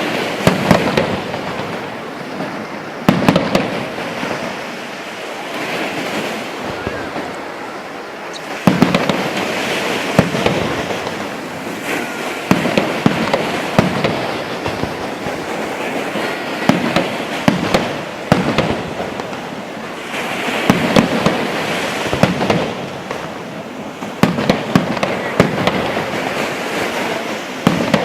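Fireworks going off: a continual run of sharp bangs and crackling bursts, with the loudest reports about three seconds in, around nine seconds in and again in the last few seconds.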